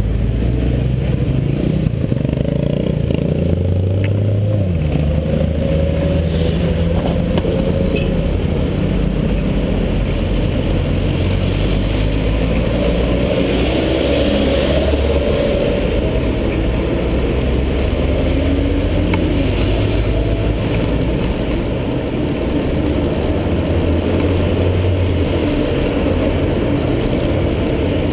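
Steady low rush of wind over a helmet-mounted action camera on a moving bicycle, mixed with the engines of cars passing in road traffic.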